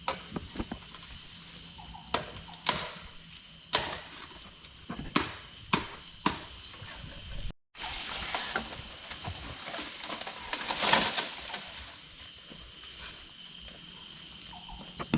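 Footsteps and brushing through undergrowth on a forest trail, a series of irregular knocks and crunches, over a steady high insect drone. About halfway through the sound cuts and continues as a denser rustling that swells near the end.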